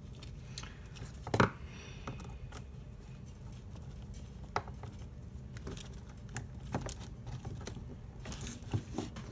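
Small clicks and taps from handling a plastic PowerCon connector and a screwdriver at a desk, with one louder knock about a second and a half in and a few quick taps near the end.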